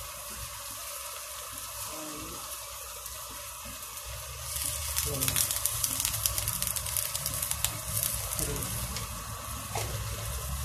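Shredded jackfruit frying in oil in a metal wok: a steady sizzle that turns into louder, denser crackling a little under halfway through.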